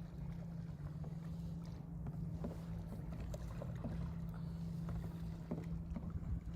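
Kayak being paddled on calm water: light splashes and a few short knocks of the paddle, over a steady low hum.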